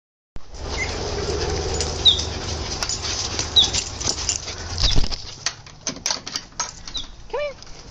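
Greyhounds running and playing on a lawn: a quick patter and thudding of paws with rustling, over a low rumble for the first five seconds or so. A few short high chirps come through, and near the end there is a brief rising whine.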